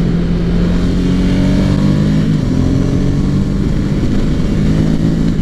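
Ducati Hypermotard 796's air-cooled L-twin engine, breathing through a Termignoni exhaust, running steadily at road speed, with wind rush over the microphone.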